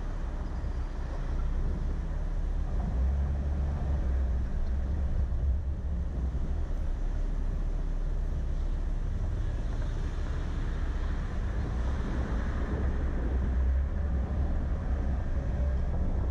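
Car pulling away from a stop and driving along a city street: a steady low rumble of engine and road with some wind noise. It gets a little louder a second or two in as the car gets moving.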